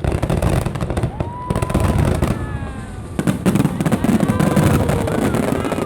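Fireworks bursting in rapid succession: a dense run of bangs and crackles.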